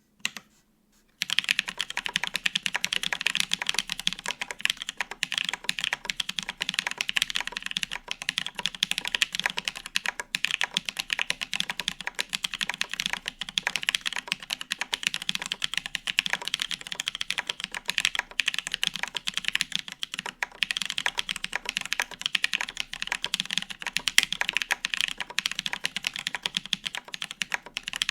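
Continuous fast typing on a gasket-mount mechanical keyboard with lubed Holy Panda tactile switches on a polycarbonate plate, no foam, and double-shot ABS keycaps. A couple of lone keystrokes are followed, about a second in, by a steady stream of quick clicks.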